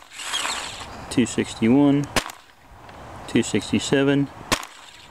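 AGD Micromag paintball marker firing single shots through a chronograph, with a sharp crack near the end.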